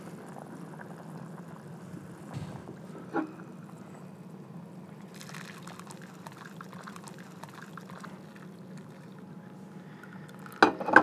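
Cooked quinoa and its cooking water poured from a saucepan through a mesh strainer into a bowl, the pour splashing and hissing for a few seconds past the middle. A short knock comes about three seconds in and a louder clunk near the end.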